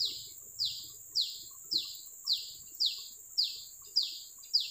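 A bird calling the same short, high, falling note over and over, about two a second, over a steady high hiss.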